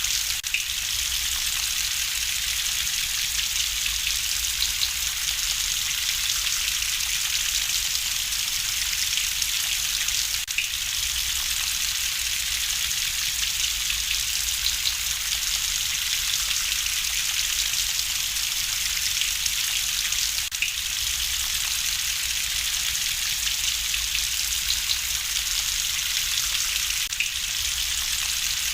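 Steady rain falling, an even hiss with a few faint pops of a crackling wood fire scattered through it.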